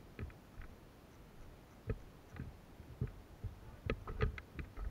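Scattered short clicks and knocks, a few at a time, with a small cluster near the end.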